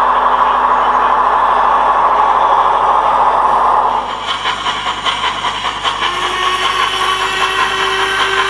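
Model diesel multiple unit's sound-decoder engine running steadily as it pulls away. About four seconds in it gives way to the sound of a model Ivatt Class 2MT steam tank locomotive approaching, a run of quick beats, with a steady tone joining about two seconds later.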